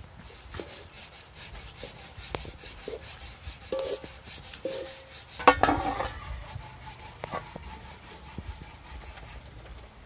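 Scuffing, rubbing and scattered light knocks as someone moves about and handles a large aluminium cooking pot, with one loud knock about five and a half seconds in.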